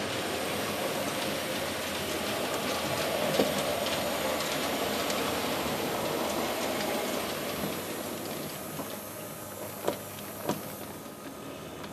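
Märklin HO scale model steam locomotive and tender rolling past on the track, a steady running and rolling sound that swells and then fades as it goes by. Two sharp clicks come near the end.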